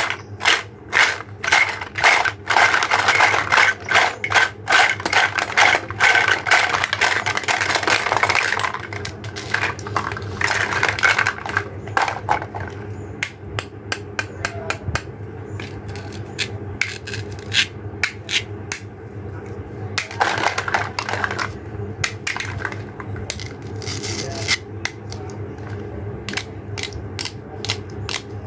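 Plastic toy pieces clicking, tapping and scraping, dense and loud with scraping for about the first eight seconds, then thinning to scattered sharp clicks and taps.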